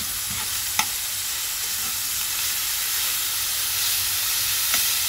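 Slivered orange peel sizzling in olive oil in a nonstick pan while being sautéed, stirred with a metal spoon that clicks against the pan about a second in and again near the end.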